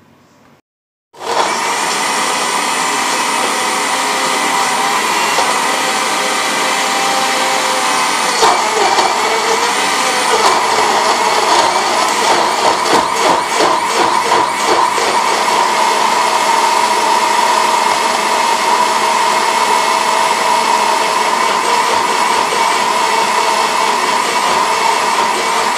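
Electric countertop blender (mixer-grinder) motor starting about a second in and running at speed, blending chunks of sweet lime and banana with sugar. From about 8 seconds in its pitch shifts and the sound wavers unevenly for several seconds, then it settles into an even run.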